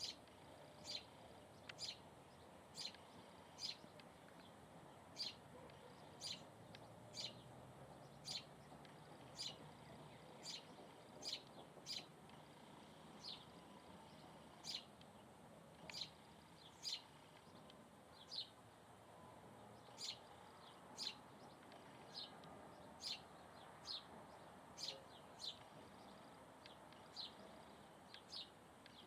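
A bird repeating a short, high chirp about once a second, over a faint steady background hiss.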